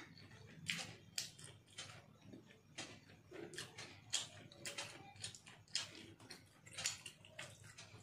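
Eating by hand: irregular soft clicks and smacks of chewing and of fingers working rice, about two a second.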